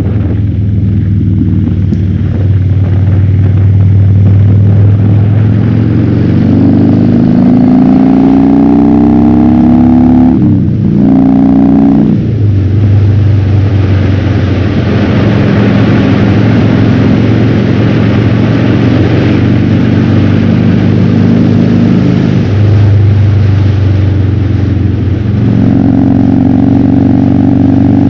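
Harley-Davidson Fat Bob's V-twin engine through a KessTech ESM3 exhaust in legal mode, heard from a helmet-mounted camera while riding. The engine note climbs through acceleration and breaks off briefly for a gear change about ten seconds in. It then runs steady at cruising speed with wind rushing over the microphone, and changes step again twice near the end.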